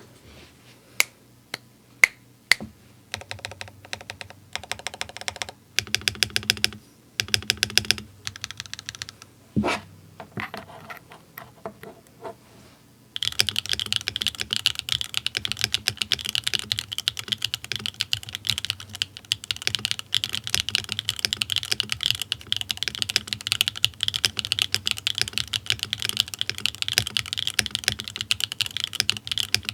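Mechanical keyboard typing on a Bakeneko65 with SWK Catmint switches, an aluminium plate and GMK Tuzi clone keycaps. For the first part there are single key presses and short runs of keys with gaps between them. Then, a little under halfway in, it turns into continuous fast typing.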